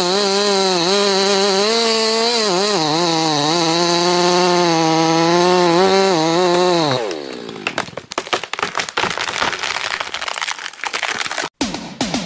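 Chainsaw running in the cut through a large tree trunk, its pitch wavering slightly, then winding down about seven seconds in. A rapid run of sharp cracks and snaps follows as the tree breaks off and falls.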